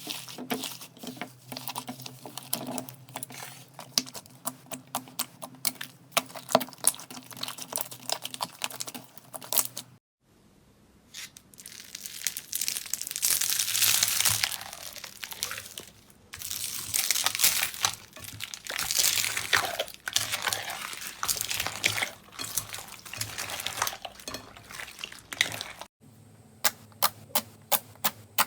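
Slime being squeezed, stretched and poked by hand, giving sticky crackling and popping clicks. The sound changes abruptly twice: dense sharp clicks over a low hum, then longer swelling crinkly crackles, then separate sharp pops.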